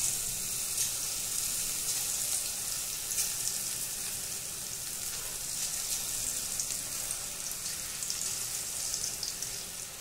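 Onion pakora batter, sliced onion coated in gram flour, deep-frying in hot oil in a kadhai: a steady sizzle full of small crackles as fresh handfuls are dropped into the oil.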